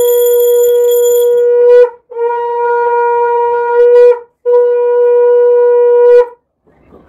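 Conch shell (shankha) blown in three long, steady, loud blasts: one already sounding that stops about two seconds in, then two more of about two seconds each, every blast tailing off with a slight wobble in pitch.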